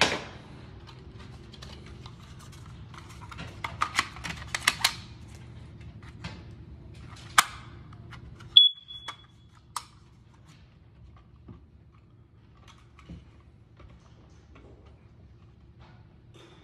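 A First Alert hardwired smoke alarm gives one short, high beep about halfway through as it is connected to the ceiling wiring. Around it are plastic clicks and knocks from the detector and its base being handled.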